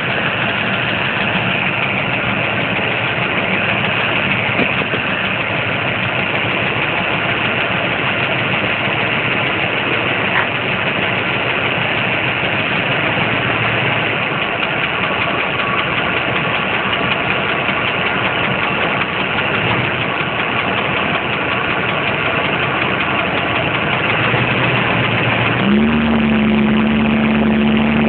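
Ford Bronco's Windsor V8 running steadily with a ticking that the owner suspects is a lifter, a bent pushrod, a leaking header gasket or the pistons. A louder steady hum comes in near the end.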